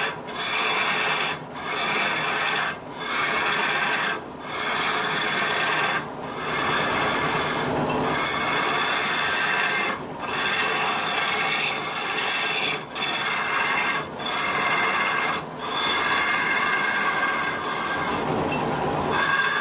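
A wood-turning chisel cutting into a spindle spinning on a lathe, making a continuous rasping scrape over steady whining tones. It breaks off briefly every one to two seconds as the tool is lifted and set again.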